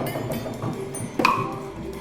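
Hand-made sound effects: a few light knocks, then one sharp strike with a short clinking ring about a second and a quarter in.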